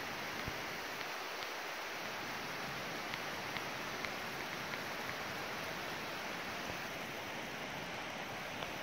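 Steady rushing of a waterfall, with a few faint ticks over it.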